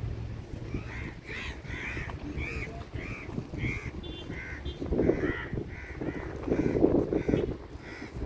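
A bird calling over and over in short harsh calls, about two a second, over a steady low rumble. Louder swells of rushing noise come about halfway through and again near the end.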